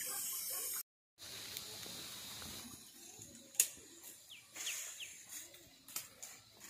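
Quiet outdoor ambience, cut off by a brief dropout about a second in. After it come a sharp click at about three and a half seconds, a few short, faint falling chirps a second later, and a couple of smaller clicks near the end.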